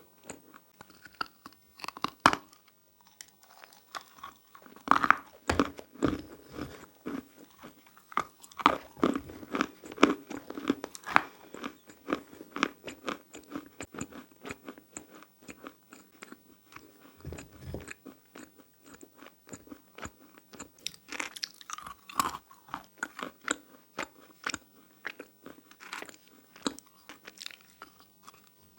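Close-miked biting and chewing of dry, powdery handmade clay and plaster pieces: irregular sharp crunches and snaps, busiest about five seconds in and again later on, with softer grinding chews between.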